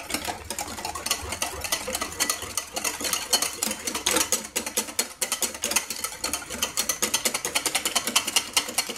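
Wire whisk beating a runny egg-and-yogurt batter in a glass bowl: a rapid, even clicking of the wires against the glass, quickening toward the end.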